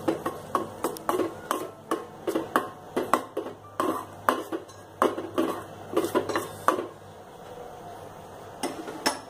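Steel spoon clinking and scraping against the sides of a stainless steel pot while stirring a thick masala gravy, about three knocks a second, stopping about seven seconds in, then two more clinks near the end.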